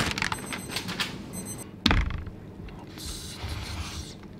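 Kitchen handling sounds: light clicks and rustles, then a single dull thunk about two seconds in as a ceramic bowl is set down on a wooden tray, followed by a soft hiss.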